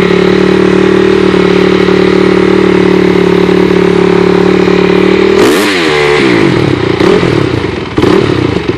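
Honda CRF250R dirt bike's single-cylinder four-stroke engine idling steadily, warming up after a cold start. About five and a half seconds in it is revved with throttle blips, and it is blipped again near the end.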